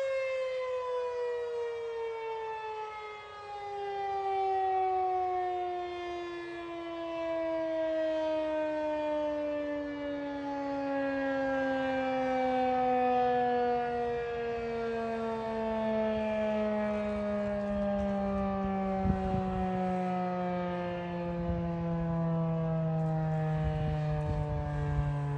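Federal Signal 2001 single-tone rotating tornado siren winding down, its pitch falling steadily and slowly as the rotor coasts to a stop at the end of the test. The loudness swells and fades as the horn sweeps around.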